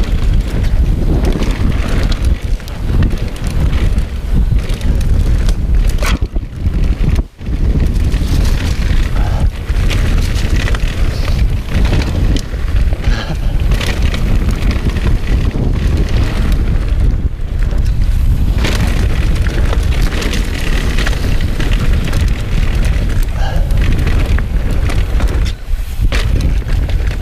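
Wind rushing over a chest-mounted action-camera microphone as a mountain bike rides down a dirt trail, with the tyres on the dirt and many small knocks and rattles from the bike over rough ground. The rush drops out briefly about seven seconds in.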